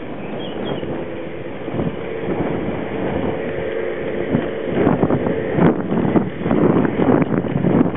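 Garden-railway model diesel locomotive running past with its wagons: a steady electric motor whine, with wheels clicking and rattling over the track. The clicking grows louder from about halfway as the train comes close.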